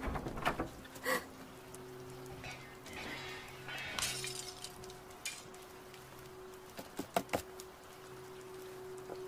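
A few sharp clicks and clinks, one of them ringing briefly about a second in, then a short hiss around four seconds and a quick run of clicks near seven seconds, over a steady low drone.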